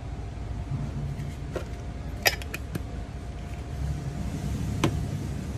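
A few sharp clicks and taps of a vinyl figure and other small items being set down on a plastic folding table, the loudest about two seconds in, over a steady low rumble.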